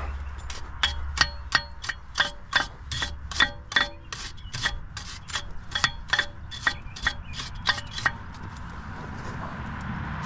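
Steel wire brush scrubbing rust off a car's wheel hub around the wheel studs, in quick strokes about three a second with a faint metallic ring. The strokes stop about eight seconds in.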